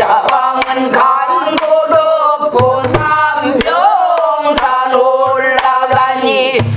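A woman singing pansori in a wavering, ornamented voice, accompanying herself on a buk barrel drum. Sharp stick strokes and deep thumps on the drum fall between her sung phrases.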